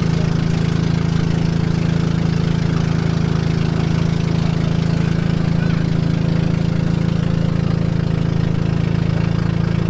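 Boat engine running at a steady speed, an even low hum that holds one pitch throughout.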